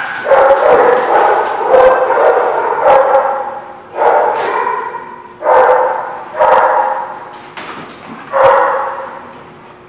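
Dog barking repeatedly, about seven loud barks, each trailing off over about a second, dying away near the end.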